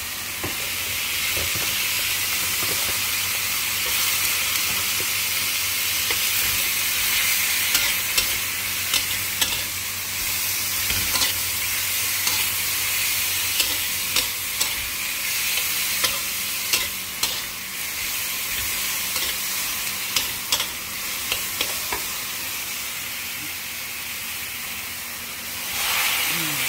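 Capcay of vegetables and shrimp sizzling as it is stir-fried in a pan, with a spatula clacking against the pan at irregular moments, roughly once a second.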